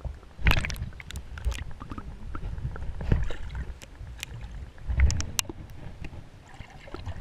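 Water sloshing and splashing heard through an action camera held underwater: a muffled low rumble with sharp clicks and splashes as a hand and a bass move in the water beside it, loudest about half a second in and again around five seconds.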